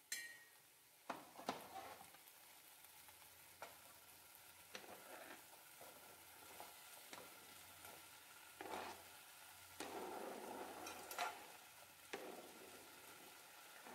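Faint sizzling of an onion-tomato masala frying in an aluminium kadai, with a steel spatula scraping and clicking against the pan every second or two. About ten seconds in, chopped okra is slid off a cutting board into the pan, the pieces tumbling in with a short rush of noise.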